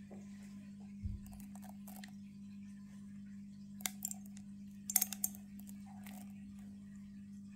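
A few light clicks of seeds dropping onto the pebbles and sand of a plastic ant enclosure, in two small clusters about four and five seconds in, over a steady low hum. A dull thump about a second in.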